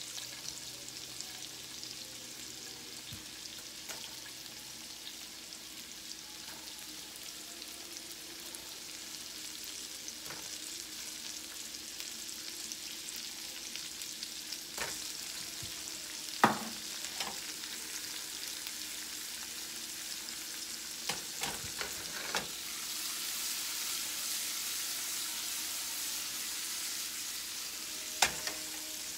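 Garlic, sun-dried tomatoes and artichoke hearts sizzling steadily in a nonstick frying pan, the sizzle growing louder for a stretch in the second half. A few sharp knocks stand out, the loudest about halfway through and another near the end.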